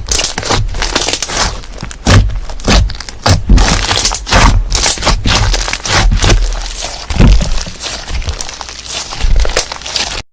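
Slime being squeezed and pressed by hand close to the microphone, giving dense crackling and crunching with low thumps, then cutting off suddenly near the end.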